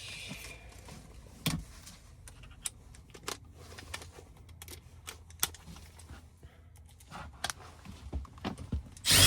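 Small metal tools clinking and clattering in scattered knocks while someone searches for a 1/4-inch driver. Near the end a power drill starts up loudly.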